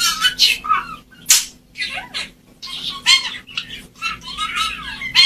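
Budgerigars warbling and chattering: quick high chirps and squeaky notes that wobble up and down, in short bursts with brief gaps between them.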